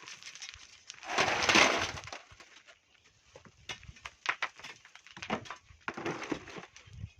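Volcanic sand and stones worked with hand tools: a loud scraping rush of sand and gravel about a second in, then scattered clicks and knocks of stones.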